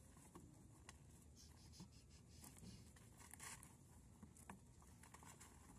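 Near silence, with faint scattered clicks and scratchy rustles.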